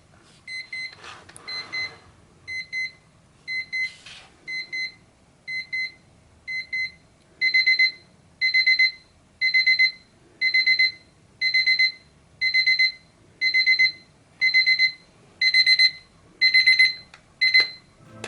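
Seiko QHE194 alarm clock's electronic alarm beeping in a steady rhythm. It starts as short, softer beeps, and about seven seconds in each burst becomes longer and louder. It stops shortly before the end.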